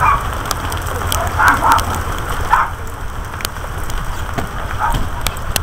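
Crackling, rustling noise with scattered clicks over a steady low rumble: wind and clothing rubbing on a body-worn camera's microphone, with a few brief muffled voices.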